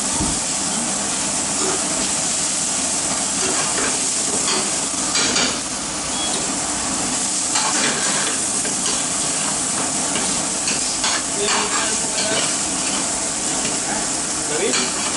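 Lobster pieces frying in a cream sauce in a steel pan, with a steady sizzle. A metal ladle stirs the pan and scrapes against it several times.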